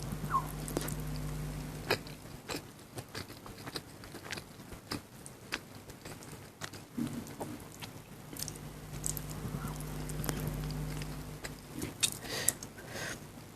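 Close-miked chewing and mouth sounds of someone eating chicken biryani: irregular smacks and clicks scattered throughout. A low steady hum fades out about two seconds in and returns midway.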